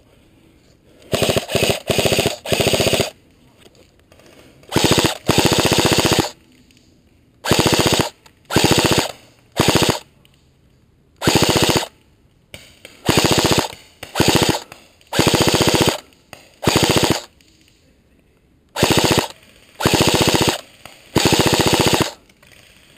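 Airsoft rifle firing on full auto in repeated short bursts, each a rapid even rattle lasting well under a second to about a second, with brief pauses between them.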